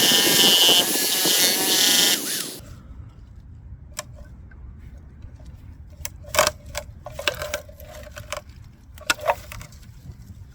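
A loud motor runs and cuts off abruptly about two and a half seconds in. A few scattered sharp knocks and clicks follow.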